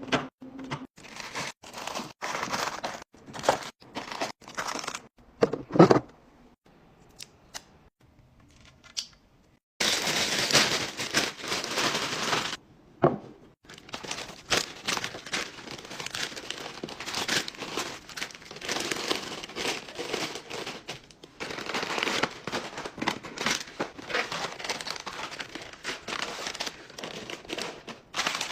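Crinkling and rustling with many sharp clicks, falling quiet for a few seconds partway through before starting again.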